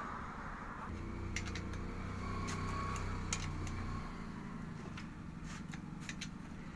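Scattered sharp metallic clicks of a T-handle socket wrench working on the cylinder-head nuts of a Bajaj Maxima Z engine. Under them, a steady low engine hum runs for about three seconds from a second in, then fades.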